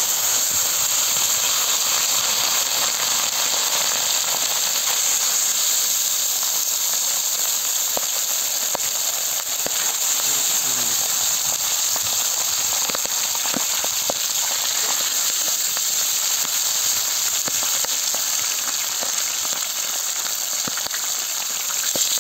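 Trout pieces frying on a hot iron sac griddle: a loud, steady sizzle and hiss, with a few sharp crackling pops scattered through it.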